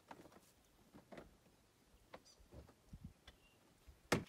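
Scattered light clicks and knocks from hands working on the plastic front bodywork of a Yamaha Grizzly 450 ATV, with one sharp, louder knock near the end.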